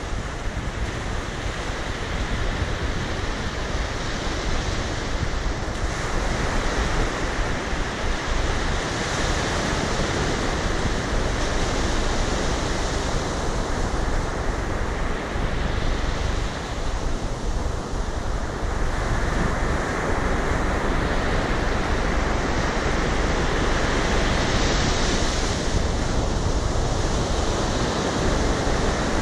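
Ocean surf: waves breaking and washing up the beach in a continuous rushing wash that swells and eases slowly.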